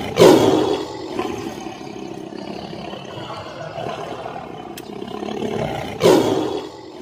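Two big-cat roars as sound effects, one just after the start and one about six seconds in, each hitting suddenly and fading over about a second, with a steady rumble between them.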